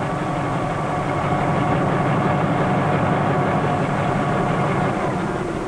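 Bell 47 helicopter's piston engine and main rotor running steadily while it sits on the ground, a constant mechanical drone with a few steady engine tones, a little louder in the middle and easing slightly near the end.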